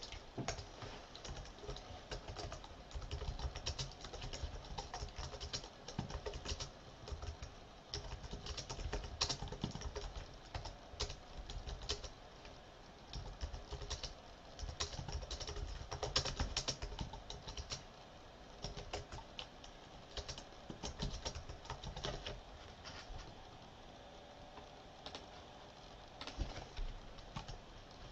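Computer keyboard typing: runs of quick key clicks broken by short pauses.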